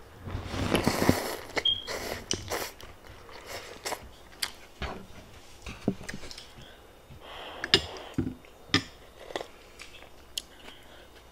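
A person eating ramen noodles in broth: a noisy slurp about a second in, then chewing with many short mouth clicks and smacks, and a softer slurp about seven seconds in.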